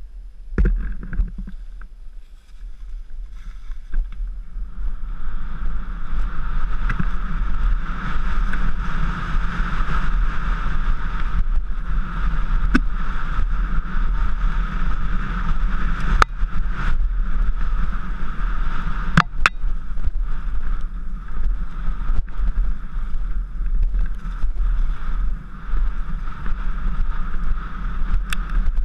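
Mountain bike descending fast on a dirt forest trail, picked up by an action camera riding along: steady wind rush and tyre rumble that builds over the first few seconds as speed picks up, with a few sharp knocks over the bumps.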